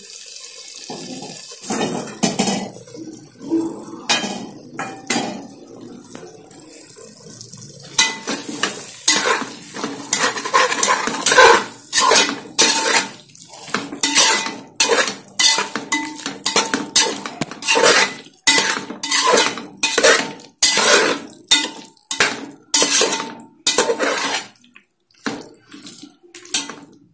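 Slotted spatula scraping and knocking against the sides and bottom of an aluminium pressure cooker as prawns are stirred into a thick tomato-onion masala, with a faint ring from the pot. The strokes start sparse, then come quick and regular from about eight seconds in, one or two a second, and thin out near the end.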